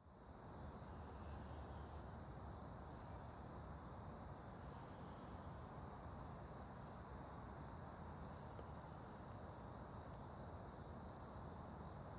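Crickets chirping in a steady, evenly spaced pulse, faint, over a low background rumble.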